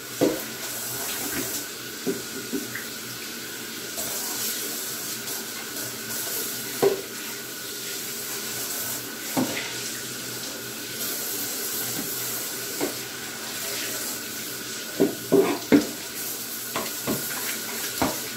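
Kitchen tap running steadily into a sink as a plastic tub is rinsed under the stream, the water splashing inside the tub. A few short knocks and clatters as the tub is handled, most of them near the end.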